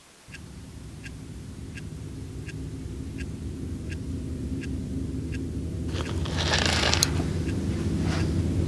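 Clock ticking about one and a half times a second over a low sustained drone that swells steadily louder. A rushing whoosh builds about six seconds in and ends in a sharp hit about a second later.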